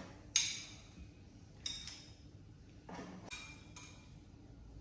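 Metal kitchen tongs clinking against a ceramic plate as chicken wings are picked up: a handful of sharp clinks, the loudest with a short ringing tail about half a second in.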